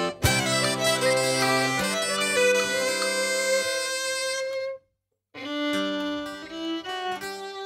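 Breton dance music. A bagpipe tune, its steady drones underneath, ends on held notes and cuts to silence for about half a second. A fiddle tune then starts.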